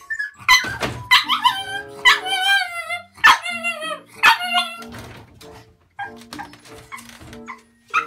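Pug puppy crying in its crate, a run of wavering, high-pitched whines and yelps, mixed with sharp knocks as it climbs and pushes against the wooden crate's wire door. The puppy is crying at night, distressed at being crated.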